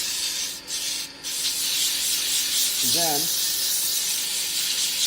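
Coarse sandpaper held against a teak handle spinning on a wood lathe: a loud, steady hiss, briefly broken twice about a second in, that cuts off sharply right at the end as the paper is lifted away. This is the first, coarse-grit stage of sanding the turned handle smooth.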